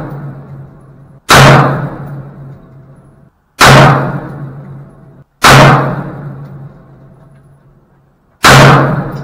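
Four unhurried gunshots from a home-built AR-style pistol, spaced roughly two seconds apart, each a sharp crack that dies away over a second or so.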